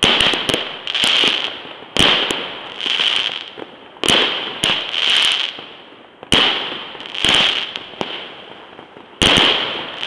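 Fireworks display: aerial shells fired in a sequence, a sharp bang about every two seconds, each trailed by a hissing crackle that dies away.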